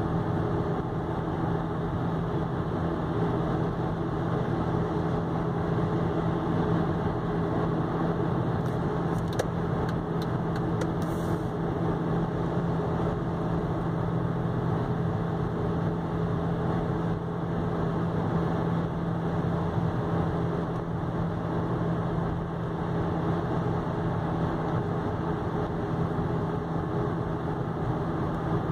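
A car cruising steadily at about 100 km/h, heard from inside the cabin: an even engine drone at just under 2,000 rpm mixed with road and tyre noise.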